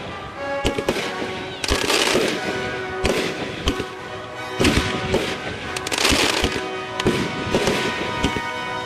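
Consumer aerial fireworks going off in quick succession, sharp bangs about once a second, each trailed by crackling, over background music.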